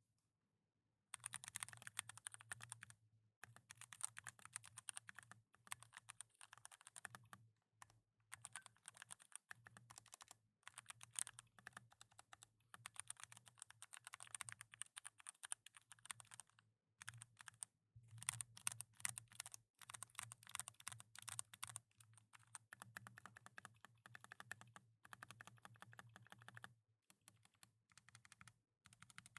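Typing on a GMMK TKL mechanical keyboard with lubed Gateron Brown tactile switches: quick runs of keystrokes in bursts of a second or few, broken by short pauses.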